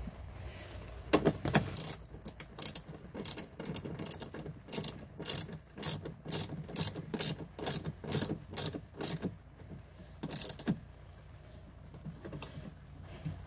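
Socket ratchet wrench clicking in short back-and-forth strokes, about three clicks a second, as a cable's lug nut is tightened down on a battery terminal. The clicking stops about two seconds before the end.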